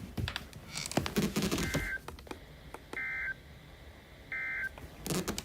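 Weather radio sending the S.A.M.E. end-of-message code: three short, identical buzzing digital data bursts about a second and a half apart, which mark the end of the tornado warning broadcast. Some static and clicks come before them.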